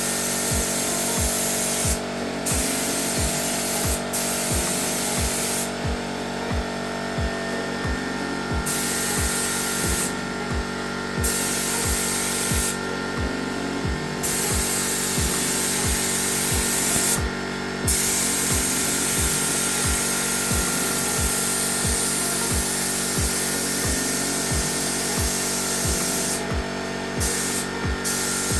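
Paint spray gun hissing as high-fill primer undercoat is sprayed, in long bursts with the trigger released for a second or two several times. Background music with a steady beat plays underneath.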